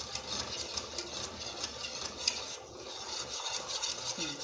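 Wire whisk scraping around a metal saucepan as it stirs a milk-and-flour white sauce that is thickening on the stove, a continuous run of short scratchy strokes.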